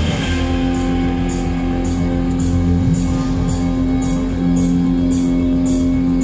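Amplified rock music at a stage soundcheck: a guitar holds one long sustained note over a low bass and a steady beat of about two light ticks a second.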